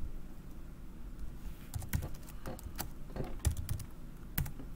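Typing on a computer keyboard: a few scattered keystrokes with pauses between them, most of them in the second half.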